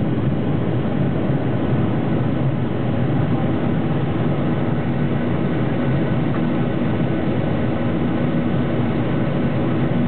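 Steady drone of a Boeing 737-800's CFM56-7B turbofan engines and rushing air, heard inside the passenger cabin in flight, with a few faint steady tones over a deep even roar.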